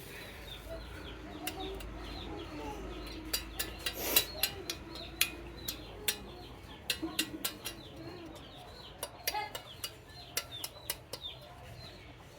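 Marbles rolling down wooden HABA marble-run slopes, clacking against the wood pieces and each other: a wavering rolling hum with many sharp, irregular clicks, the loudest about four seconds in.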